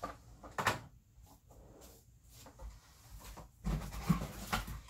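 Handling noise from rummaging in a cardboard box of goods: a couple of sharp clicks near the start as a small item is set down on a desk, then rustling and bumping that get louder about two-thirds of the way through as items are dug out of the box.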